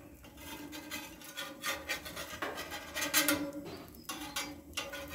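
Metal spatula scraping across the steel plate of a flat-top griddle in a few separate rasping strokes as it shifts the pancakes.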